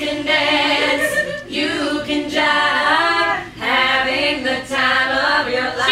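Women's voices singing together a cappella, in held, sliding phrases broken by short pauses.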